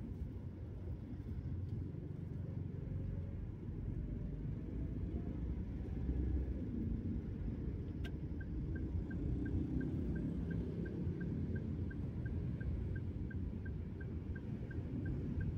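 Steady low rumble of a Daihatsu Terios's engine and tyres heard inside the cabin in slow traffic. About halfway through, the turn signal is switched on with a click, and its indicator ticks evenly about twice a second, signalling a left turn.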